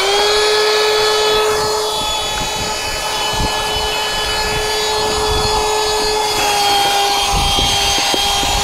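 12-volt electric air pump, powered from a car's cigarette lighter, running steadily with a constant whine as it inflates an inflatable boat's air chamber.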